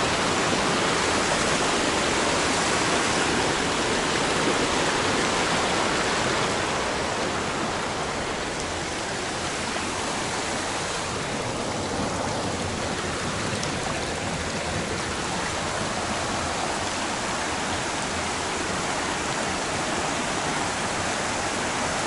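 Rushing water of a rocky mountain stream cascading between boulders: a steady, even rush of water that gets a little softer about seven seconds in.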